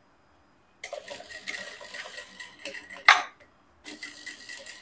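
Industrial lockstitch sewing machine stitching a seam through layered fabric and lining in two short runs: it starts about a second in, stops after a sharp clack near the middle, and starts again near the end.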